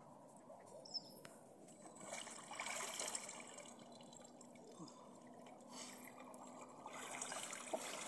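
Faint trickling and dripping of lake water as a man comes up from a cold-water dunk and water runs off him; near the end, soft swishing as he wades through waist-deep water.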